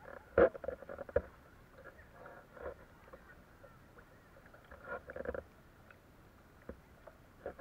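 Water splashing and gurgling around a kayak in moving current, in short scattered bursts, with a sharp knock about half a second in and another just after a second, and a longer splashy burst around five seconds.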